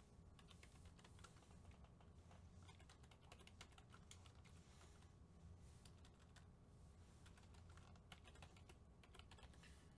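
Faint typing on a computer keyboard: scattered clicks that come in small clusters, over near silence.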